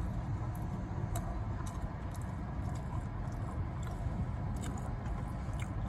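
A man chewing a mouthful of taco, with scattered small mouth clicks, over a steady low rumble.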